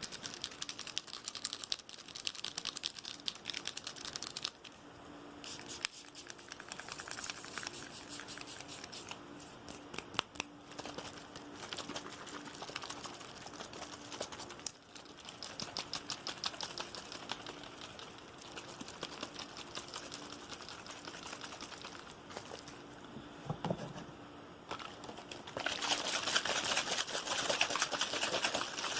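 Fast, aggressive ASMR tapping: rapid strings of clicking taps with short pauses between runs. Near the end a louder water sound starts, like liquid being poured or splashed.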